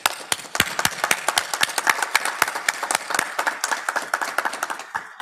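Legislators applauding: many hands clapping in a dense, irregular patter that dies away near the end.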